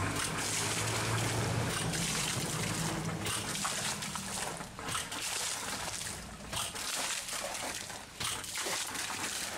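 Water and drilling slurry splashing and trickling out of a borehole during wash boring, carrying up sand from the soil layers, with a low hum under it in the first few seconds.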